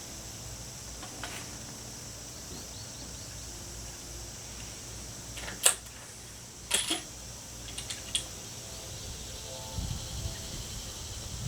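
Steady outdoor background hiss with a few sharp clicks or knocks about halfway through, the first the loudest. Faint music from the park can be heard near the end.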